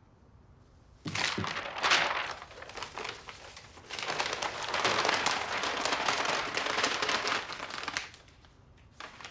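Sheets of paper rustling and crinkling as documents are handled and gathered up by hand: a burst about a second in, then a longer stretch of rustling through the middle.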